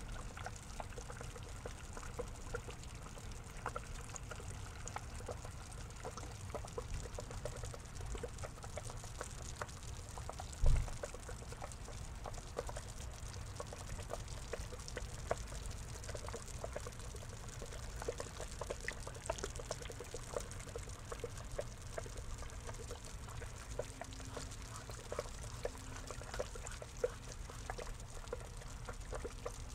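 Water trickling and pouring steadily into a small pond, with many small drips and splashes, and a single dull thump about ten seconds in.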